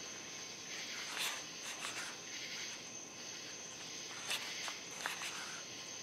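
Folded paper being flexed in the hands, with a few short rustles and crackles as it is opened and squeezed shut, over a steady faint high hiss.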